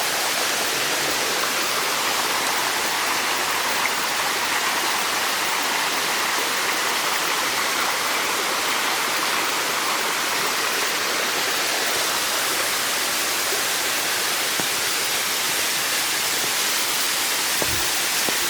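Little waterfall running: a steady, unbroken rush of falling water.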